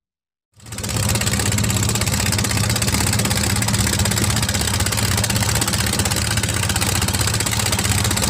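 Boat engine running steadily under way, starting abruptly about half a second in.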